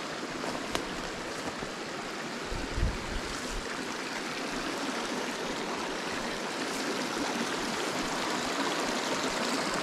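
Small rocky mountain creek running over stones, a steady rush of flowing water that grows a little louder toward the end. A soft low thump about three seconds in.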